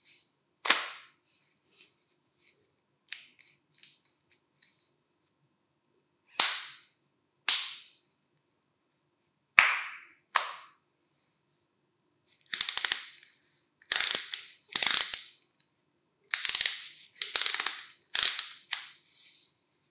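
Sharp plastic clicks from an old National EZ7410 cordless screwdriver as its folding grip and switch are worked: a few single clicks spaced a second or more apart, then from about halfway a run of louder, rattly clicks about twice a second.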